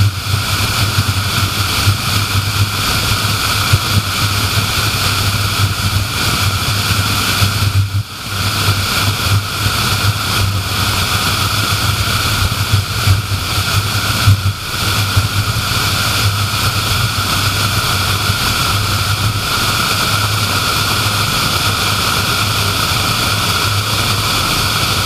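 Steady road and wind noise of a car cruising at highway speed, with a constant low drone under a broad rushing hiss; the noise drops briefly twice, about eight and fourteen seconds in.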